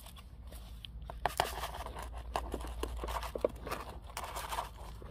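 Coarse, gritty succulent potting mix scraping and rattling as it is scooped and tipped from a plastic scoop into a small pot, with scattered light clicks of grit, over a steady low hum.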